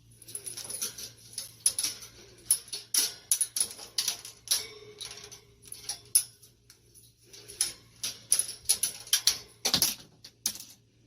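A pet parrot's rapid, uneven run of short squawks and clicks, with one longer held call about four and a half seconds in.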